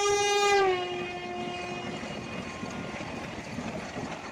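Vande Bharat Express sounding its horn in one loud blast about two seconds long that drops in pitch partway through. The steady rush and rumble of the train running past follows.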